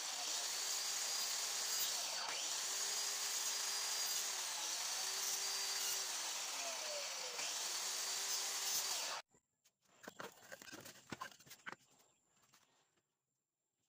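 Skil miter saw running and cutting palochina pine blocks: a loud, steady motor and blade noise whose pitch dips briefly several times as the blade is loaded. It cuts off abruptly about nine seconds in, leaving only faint knocks and scrapes.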